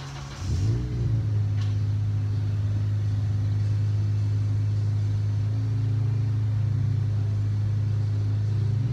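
Car engine running while parked: the revs rise briefly about half a second in, then settle into a steady, even drone.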